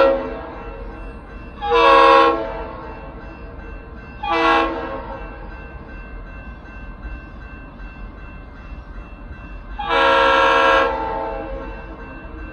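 New York & Atlantic Railway GP38-2 locomotive air horn sounding a multi-note chord: the tail of one blast, then a long blast, a short blast, and a long blast near the end. This is the long-long-short-long grade-crossing signal of an approaching train.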